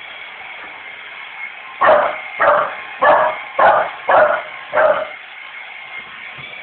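Staffordshire bull terrier barking six times in quick succession, about a bark every half second, over a steady high whine.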